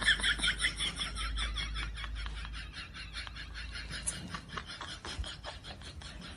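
Comedy sound effect: a fast, even run of short clicks that starts loud and fades slowly.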